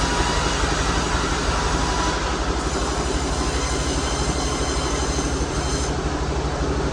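Sawmill machinery running steadily: a loud, continuous mechanical drone with a fast, even throb underneath.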